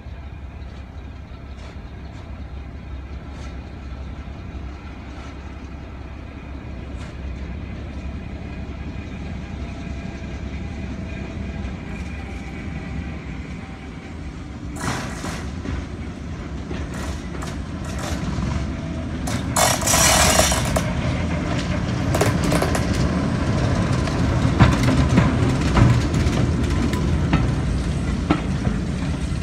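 Class 08 diesel shunter's engine running as it approaches hauling coaches, steadily growing louder. Then the wheels rumble and click over the rail as the train passes, with a brief loud burst of noise about two-thirds of the way through.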